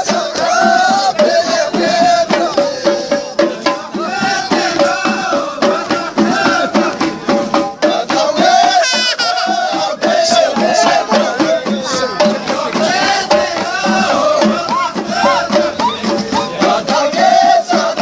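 Background folk music: a sung melody over a busy, steady rhythm of shaken rattles and percussion.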